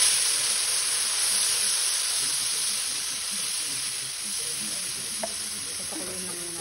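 Chicken pieces sizzling hard in a hot wok as liquid hits the pan, sending up steam. The hiss is loudest at the start and slowly dies down to a gentler sizzle, with one small click about five seconds in.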